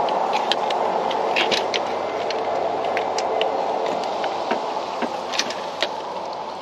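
Scattered light metallic clicks and clinks from hand tools and bolts being worked while mounting an alternator, over a steady rushing background noise that slowly fades.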